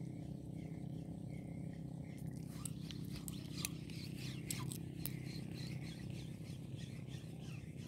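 Shimano Sedona 1000 spinning reel being cranked on a retrieve, its gears whirring steadily. Scattered high chirps and clicks join in from about two and a half seconds in.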